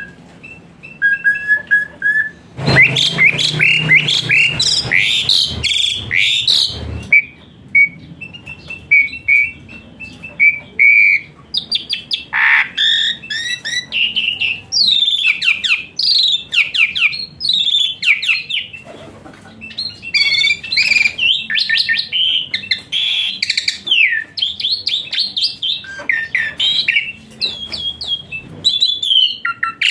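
Asian pied starling (jalak suren) singing a varied song. It opens with short clear whistles, then a loud, harsh chattering stretch a few seconds in, then a run of rapid chirps and sweeping whistles.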